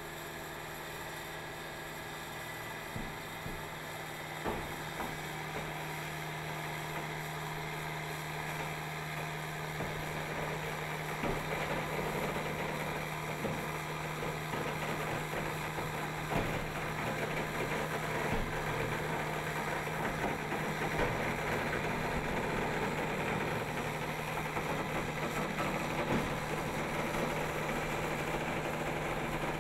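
Eagle OTR debeader running as it pulls the bead bundles out of a large radial OTR tire. It gives a steady machine hum that grows somewhat louder over the first ten seconds or so, with a few faint knocks and creaks.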